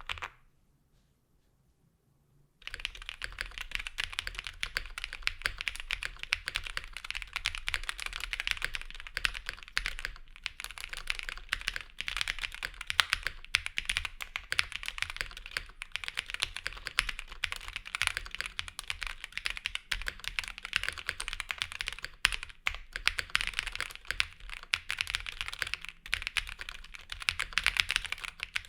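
Continuous fast typing on an Owlab Jelly Epoch custom mechanical keyboard with stock NovelKeys Cream switches, GMK ABS keycaps, a polycarbonate plate and all foams installed. The keys sound clacky, and the typing starts about three seconds in.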